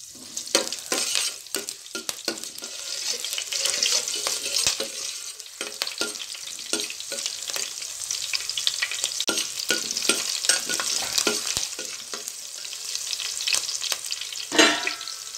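Whole spices and green chillies sizzling in a little hot oil in a stainless steel pot, stirred with a spoon that scrapes and knocks against the pan; one louder clank near the end.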